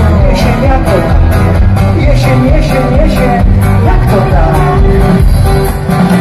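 A live pop-rock band playing, heard from within the audience: a steady drum beat about twice a second under bass, electric guitars and a wavering melody line. The music cuts off abruptly at the end.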